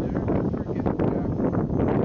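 Wind buffeting the microphone: an uneven, gusty rumble.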